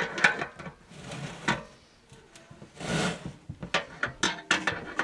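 Weldless spigot fitting being tightened down on an aluminum brew kettle: irregular metal clicks and knocks, with a short scraping rub about three seconds in.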